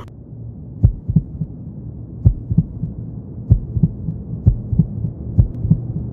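Heartbeat sound effect: five double thumps, one pair roughly every second, over a low droning hum.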